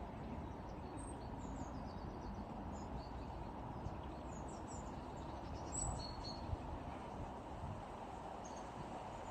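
Tits at a bird feeder giving short, high, scattered calls a few times, over a steady low background rumble.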